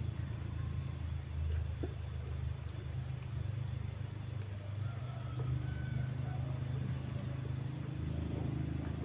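A motor running with a steady low rumble, with a few faint small clicks over it.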